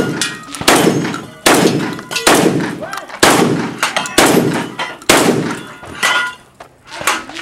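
Shotgun fired in quick succession at a competition stage, about six loud shots roughly a second apart, each with a long echoing tail, with a ringing metallic clang after some of them as steel targets are hit. Lighter metallic hits come near the end.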